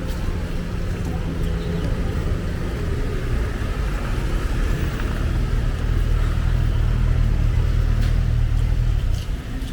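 Street traffic with a motor vehicle's low engine rumble close by. It grows louder about halfway through, as if the vehicle is passing, and eases off near the end.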